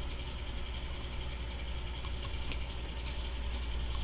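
Steady low mechanical hum in the background, with a faint click about two and a half seconds in.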